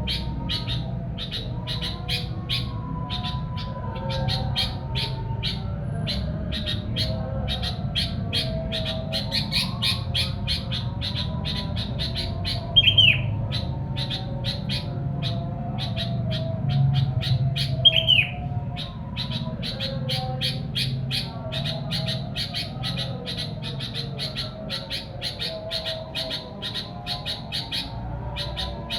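Sooty-headed bulbul (kutilang) chirping, used as a lure call: a fast run of short repeated chirps, about three a second, with two louder downward-sliding notes about halfway through.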